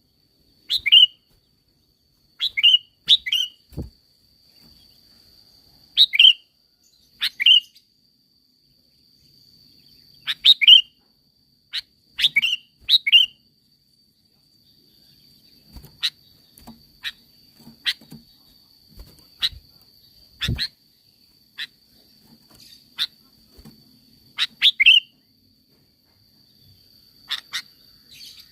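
Sooty-headed bulbul (kutilang) giving loud, short, sharp calls, often in quick pairs, every second or two with gaps between. In the second half the calls are mostly shorter, fainter single notes. A faint steady high tone runs underneath.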